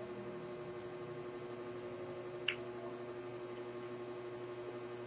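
Steady low electrical hum of room tone, with one faint short click about two and a half seconds in.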